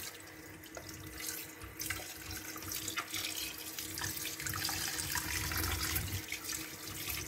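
Kitchen tap running into a stainless steel sink, the stream splashing over a gutted fish and the hands cleaning it, with small splashes and wet clicks as the hands work in the water.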